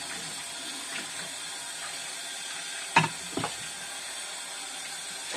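Kitchen tap water running steadily into a sink during washing-up, with a sharp knock of crockery or a pot about three seconds in and a lighter one just after.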